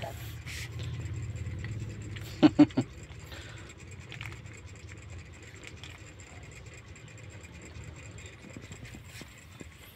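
Kitten suckling milk from a feeding bottle, with faint scattered sucking clicks. A low hum fills the first couple of seconds, and two short, loud sounds come close together about two and a half seconds in.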